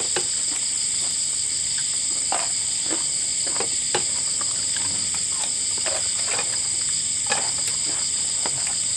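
Insect chorus, a steady high-pitched drone with no break. Scattered small clicks and knocks sound through it.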